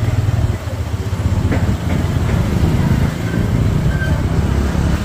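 Motorcycle engine running steadily at low speed, a constant low drone heard from on the bike as it rides along a street.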